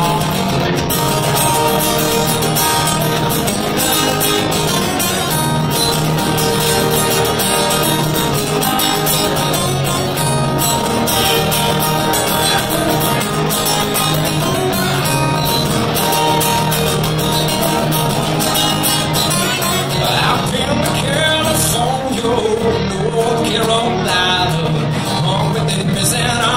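Two acoustic guitars playing a country-style song live, strumming and picking through a stretch with no sung lyrics.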